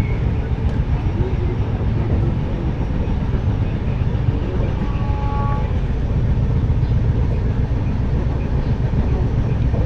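Steady low rumble of the 12056 Dehradun Jan Shatabdi passenger train running along the line, heard from on board. A brief faint two-note tone sounds about five seconds in.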